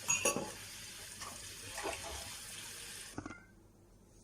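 Kitchen tap running into a sink while drinking glasses are handled, with a few clinks and knocks; the water shuts off about three seconds in.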